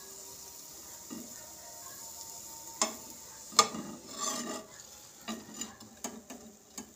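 French toast sizzling in a nonstick frying pan as its edges are fried, with cooking utensils tapping and scraping against the bread and pan several times, sharpest about three and a half seconds in.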